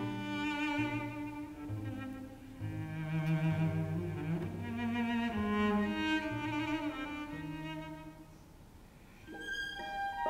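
Solo violin with a string orchestra playing a slow passage, cellos and double bass holding long low notes under the melody. The music drops to a soft dip about eight seconds in, then the solo violin enters again near the end.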